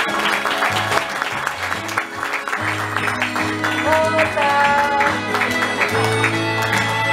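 Karaoke backing track playing an instrumental interlude of a Japanese pop ballad, with a melody line entering about four seconds in. Audience clapping is mixed in, most clearly in the first half.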